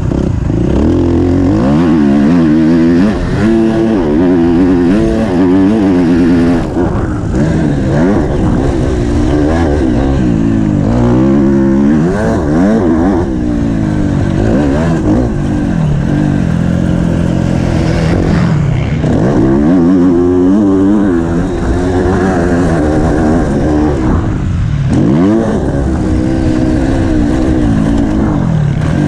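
Motocross bike engine heard from on board, revving hard and shifting as it laps the track: the pitch climbs in repeated surges and drops back, again and again, as the rider accelerates out of corners and backs off into them.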